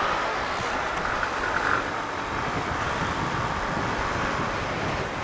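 Steady wind and road noise from a moving motorcycle in traffic, heard from a camera mounted on the motorcycle or on the rider's helmet.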